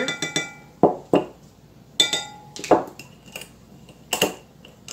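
A metal measuring spoon clinking against a glass measuring cup, some strikes ringing briefly. Several separate sharp knocks and clinks follow as the spoon is set down and a glass clamp-lid jar is handled.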